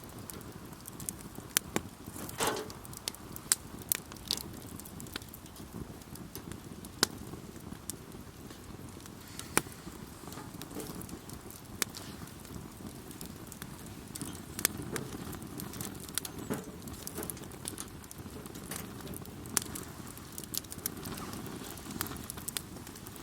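Campfire burning: wood crackling with irregular sharp pops over a low, steady rush of the flames, the loudest pops coming a few seconds in.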